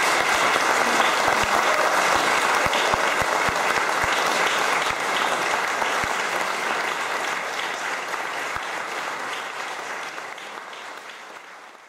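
Audience applauding: dense, steady clapping that gradually fades out over the second half.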